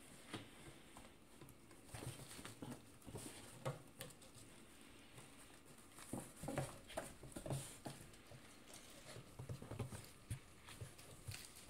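Cats playing in and on a cardboard box: paws pattering, scratching and thumping against the cardboard in irregular flurries, with quieter pauses between.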